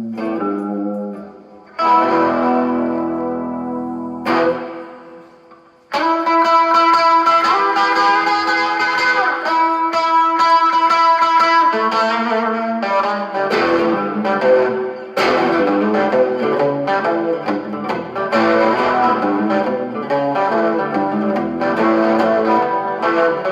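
Electric guitar played through a 1960s Supro Super amplifier: a chord struck about two seconds in and left to ring down, a brief hit, then from about six seconds held notes and changing chords played without a break.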